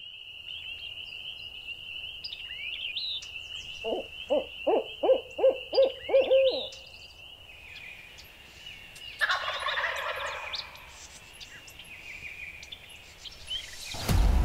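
A steady high tone with scattered songbird chirps; about four seconds in, an owl calls a rhythmic series of about eight hoots ending in a drawn-out note, the pattern of a barred owl. A wild turkey gobbles at about nine seconds, and a loud gobble begins near the end.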